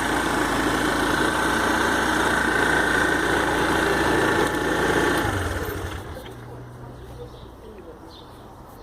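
Aprilia Habana 125 scooter engine running steadily, then about five seconds in its sound drops away and becomes much quieter.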